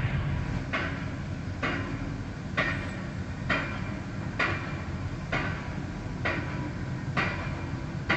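Steady low mechanical rumble with a sharp knock repeating evenly, about once a second.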